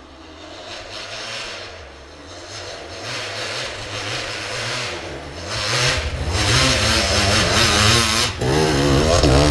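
Enduro dirt bike engine approaching and growing louder, revving up and down as the throttle is worked, loudest over the last few seconds as it comes close.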